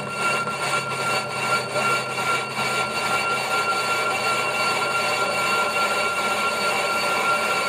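Metal lathe turning a large spinning metal part, the cutting tool taking a cut across its face with a steady high whine. A regular ticking about three times a second runs through the first few seconds and then fades.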